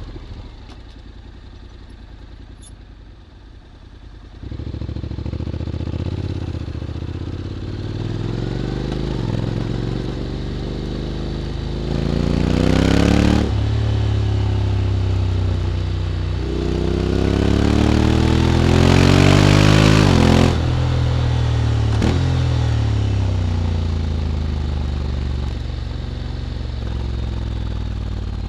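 Honda X-ADV 750's parallel-twin engine through an SC-Project titanium slip-on exhaust, running low and steady for about four seconds, then pulling away. It accelerates hard twice, the pitch rising each time and breaking off sharply, then the revs fall away as it slows.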